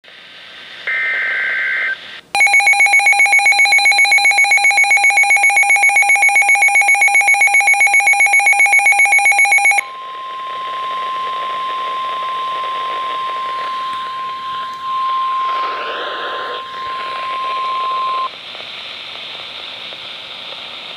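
NOAA Weather Radio emergency alert tones. About a second in there is a short warbling burst of digital header data, followed by a loud, rapidly pulsing electronic alarm beep for about seven seconds. Then comes the steady 1050 Hz warning alarm tone for about eight seconds over radio hiss, which stops and leaves static, signalling a tornado warning about to be read.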